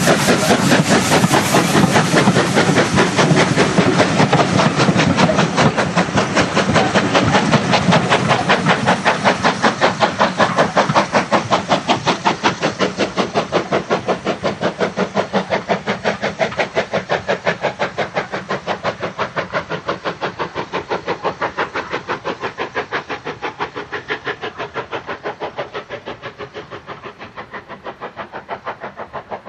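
Ivatt Class 2MT 2-6-2 tank steam locomotive 41241 working a train, its exhaust beating in rapid, even chuffs with steam hiss. The beats fade steadily as the engine pulls away.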